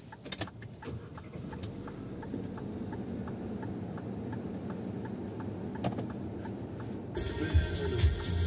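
Car turn-signal indicator ticking steadily, about three clicks a second, over low engine and road rumble inside the car. Music starts loudly about seven seconds in.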